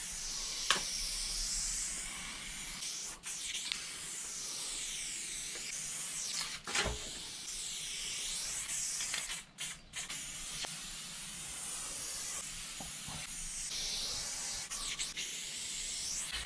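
Aerosol spray-paint can hissing as black paint is sprayed onto a concrete wall, with the tone of the hiss shifting as the can moves. It is interrupted by a brief break about ten seconds in, where the nozzle is let go, and a couple of short clicks.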